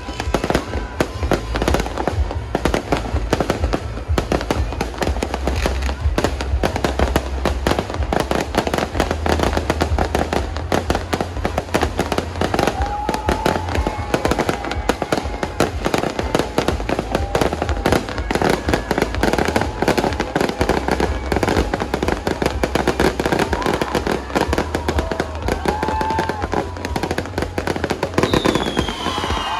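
A fireworks display bursting in a rapid, continuous crackle of bangs, with bass-heavy music playing underneath. A falling whistle comes near the end.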